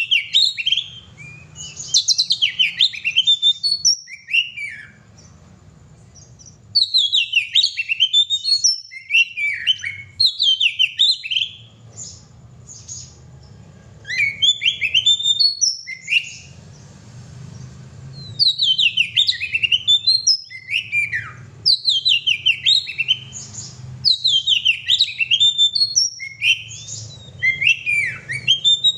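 Oriental magpie-robin singing loudly, in rapid runs of varied whistles and chirps. The phrases come in bursts of a few seconds with short pauses between them.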